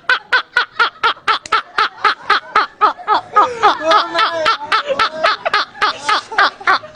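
Two men laughing hard and uncontrollably: a long run of quick ha-ha bursts, about five a second, with their voices overlapping in the middle.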